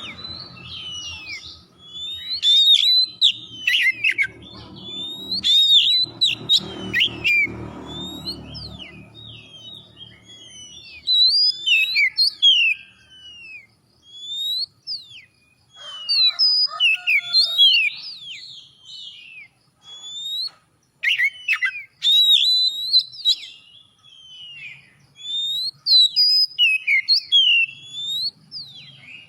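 Oriental magpie-robin (kacer) singing a loud, fast, varied song of whistled slurs and sweeping notes in bursts, with short pauses between phrases. A low rumble sits under the song for about the first ten seconds.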